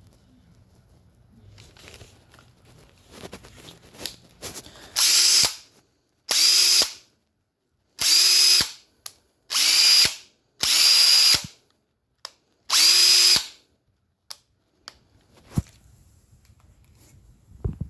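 DeWalt DCD950 18V cordless hammer drill run in six short trigger pulls without load, the motor whining up to speed each time and stopping. A few light handling clicks come before and after.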